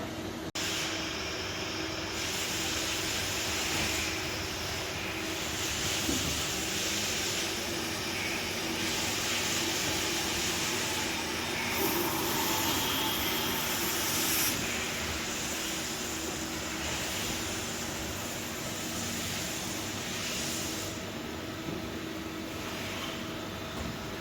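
Nakamura-Tome WT 150 CNC lathe running: a steady machine hum under a hiss that swells and drops back in stretches of a few seconds, with a short break about half a second in.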